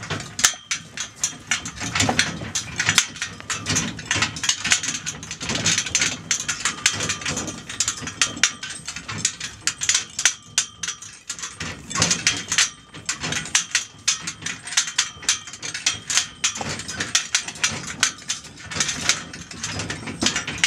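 A small horse-drawn lorry on motorcar wheels and its harness rattling and clanking without a break as it is pulled over rough, rocky ground: a rapid, irregular clatter, really noisy.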